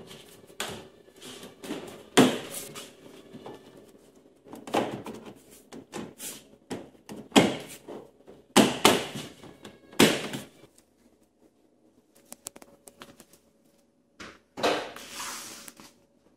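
Irregular knocks and thunks of car-bed panels being handled and fitted to the frame. Near the end comes a longer rubbing scrape.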